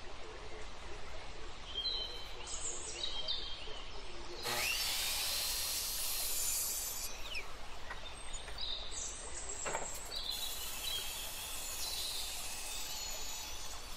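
A DeWalt miter saw winds up with a rising whine, cuts through a block of weathered wood for about two and a half seconds, then winds down. A few seconds later a band saw cuts the same block for about three seconds.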